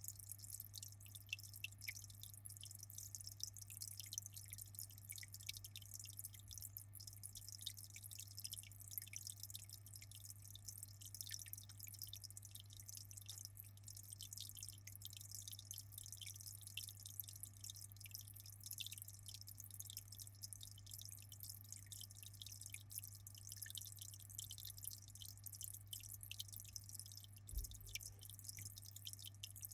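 Aquarium water trickling and dripping: a dense, fast patter of small splashes over a steady low hum.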